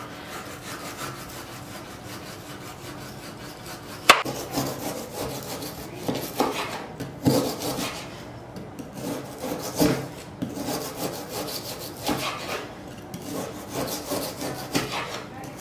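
A large kitchen knife sawing long thin slices off a log of frozen chicken döner on a bamboo cutting board: repeated rasping strokes through the hard meat, with sharp knocks of the blade on the board, the loudest about four seconds in.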